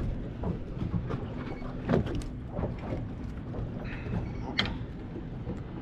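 Small boat's engine idling with a steady low hum, with a few short knocks and clicks of handling about two seconds in and again near the end.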